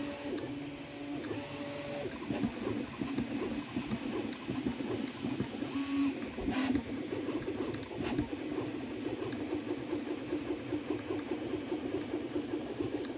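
Original Prusa Mini 3D printer running a print: its stepper motors sing in steady pitched tones during the first couple of seconds, then buzz and chatter rapidly as the print head makes many quick short moves, over a steady fan hiss.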